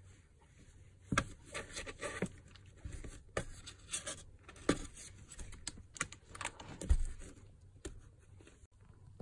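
Tiny kitten's claws scratching and scrabbling on a carpet mat as it wrestles and kicks a plush toy: irregular rustles and clicks, with a soft thump about seven seconds in.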